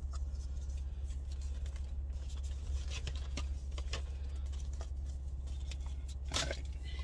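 Steady low hum of an idling car engine heard inside the cabin, with a few light clicks and rustles of packaging being handled.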